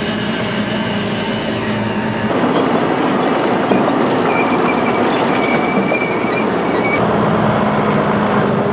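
Potato harvester running: a steady engine hum under a mechanical rattle and clatter that grows louder about two seconds in, with a thin high squeal for a few seconds in the middle.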